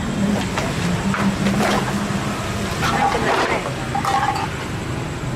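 A steady low mechanical hum with scattered clinks and rustles as items are set on the pan of a spring dial scale.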